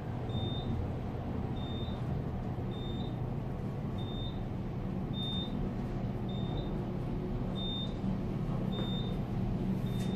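Elevator car running with a steady low hum and rumble, and a short high beep repeating about once a second, about nine times: the signal as the car passes each floor.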